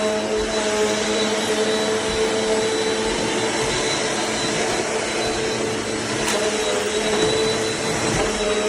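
Eureka NEU10AE4 bagless upright vacuum cleaner running steadily: a constant rushing noise with a held motor whine.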